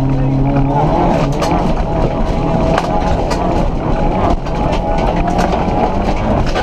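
Volkswagen Polo rally car's engine running hard under load, heard from inside the cabin, its pitch stepping near the start. Gravel and stones rattle against the body with many sharp clicks.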